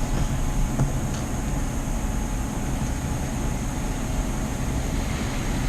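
Steady background hum and hiss with a faint, even high whine, with no distinct events.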